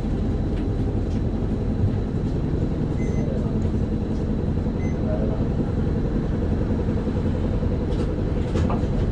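Isuzu Erga city bus's diesel engine and drivetrain running steadily while the bus is under way, heard from inside the passenger cabin, with a few faint clicks near the end.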